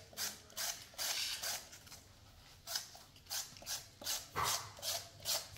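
A hand-held vegetable peeler scraping strips off a firm vegetable in a run of short strokes, one longer pass about a second in, then about three strokes a second through the second half.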